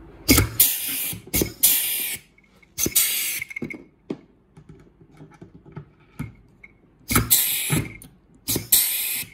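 Lusqtoff pneumatic pop-rivet gun setting aluminium blind rivets with washers through rib tape on a Dacron-covered wing. Each rivet gives a sharp snap as the mandrel breaks, then a hiss of exhausting air. This happens about five or six times, with a longer pause in the middle.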